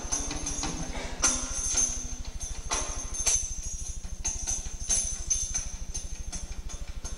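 Percussive music of jingling bells and irregular sharp strikes, over a steady low hum.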